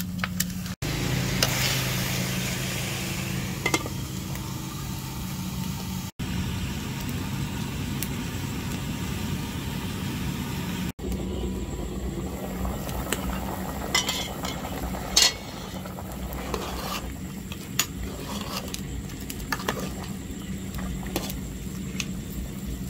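Pork ribs being stirred and sizzling in an aluminium pot, a metal utensil scraping against the pot, with a steady low hum underneath. In the second half come sharp metal clinks of the lid and utensils against the pot, and the sound drops out briefly three times at edits.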